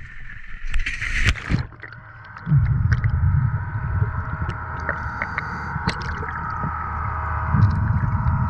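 Water splashing and gurgling as a camera is plunged into the sea, then the muffled sound heard underwater: a steady low rumble with faint held tones and scattered clicks.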